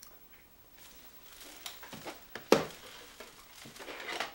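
Someone eating an apple: soft crunches and chewing, with one louder crunch or click about halfway through. Light plastic clicks from VHS cassette cases being handled.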